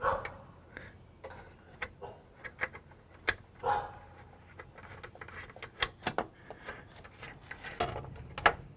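Scattered light clicks and taps of small metal hardware being handled by hand as a hood latch is fitted, with a brief rustle at the start and another a little before the midpoint.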